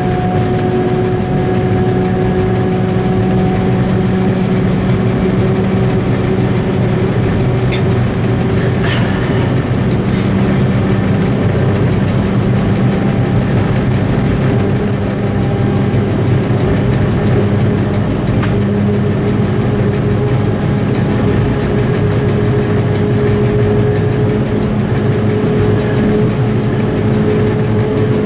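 Diesel engine of an M62 locomotive running steadily under load, heard from inside its driving cab, a constant deep drone with held engine tones, while the locomotive hauls a loaded train of tank cars. A few light clicks come about nine and ten seconds in.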